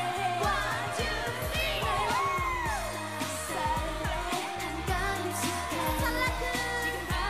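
Female voices of a K-pop girl group singing an upbeat dance-pop song over a backing track with a steady beat.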